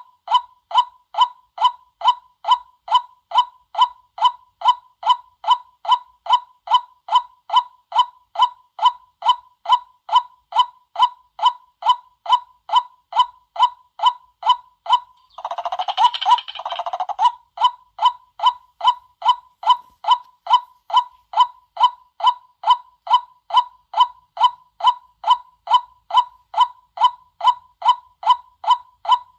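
White-breasted waterhen calling a short 'kwak' over and over, evenly, about twice a second, as a lure call. About halfway through, a louder, harsher burst of calling overlaps it for a couple of seconds.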